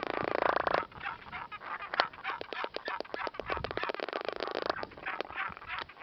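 Great albatrosses bill-clapping in a courtship display: rapid runs of hard, rattling clacks. One run ends just under a second in, a second runs from about two seconds in to nearly five, and a few single clacks follow.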